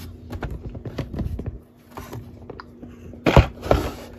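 Handling of a cardboard toy box with a clear plastic window: scattered light knocks and rustles, then two louder thumps a little over three seconds in.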